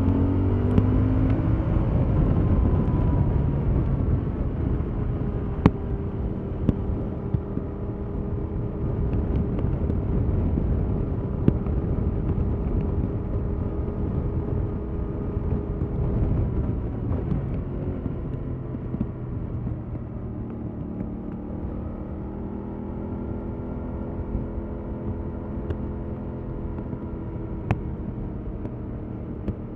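Stock 2021 Yamaha MT-07's 689 cc parallel-twin engine running under way. It rises in pitch at the start, holds a fairly steady cruise, then rises and falls again with the throttle over the last several seconds. A heavy low rumble of wind and road runs underneath, with a few sharp ticks.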